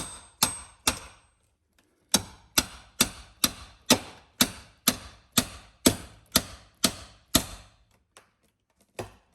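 Repeated hammer blows, about two a second: three strikes, a pause of about a second, then a steady run of about a dozen, and one more near the end. The blows are driving the caulk seal loose from under a bus's rooftop air conditioner.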